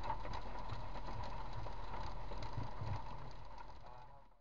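Inside a car driving through a rainstorm: steady road and engine rumble with many irregular ticks of rain striking the windshield and roof. The sound fades out over the last second or so.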